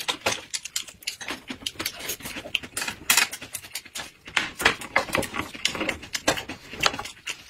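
Close-miked eating sounds: people chewing and smacking their lips, a rapid, irregular patter of wet mouth clicks.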